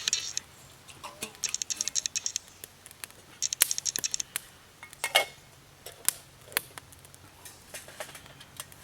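A series of small sharp clicks and taps, with two short rapid runs of clicking about a second and three and a half seconds in.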